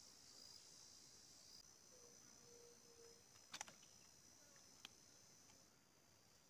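A faint, steady, high-pitched chorus of insects, with a couple of sharp clicks about three and a half and five seconds in.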